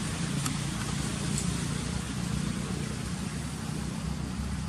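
Steady low rumble with hiss, an engine-like background noise, with a couple of faint light clicks in the first two seconds.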